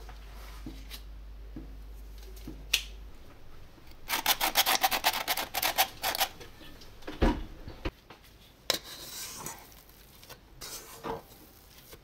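Flour being sifted by shaking a metal mesh hand sieve: a fast, rasping rattle of rapid strokes lasting about two seconds, starting about four seconds in, followed by a couple of sharp knocks.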